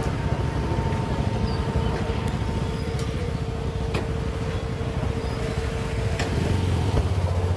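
Motorcycle and scooter engines running at low speed as the riders pull in and park, a steady low rumble with a constant whine over it and a few sharp clicks.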